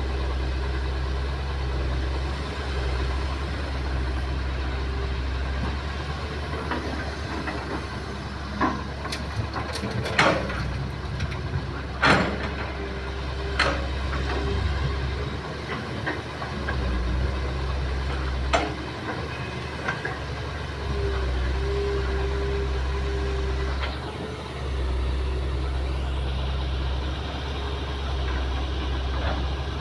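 Kobelco hydraulic excavator's diesel engine running under load while it digs and loads soil, its low rumble swelling and easing several times. Several sharp clanks and knocks come between about 8 and 19 seconds in, from the steel bucket working against rock and earth.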